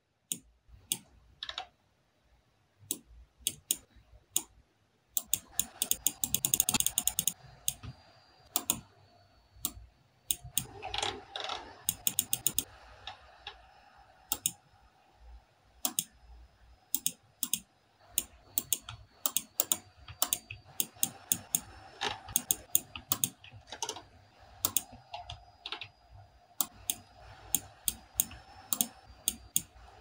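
Laptop keyboard keys and computer mouse buttons clicking in irregular runs, with fast flurries of clicks now and then.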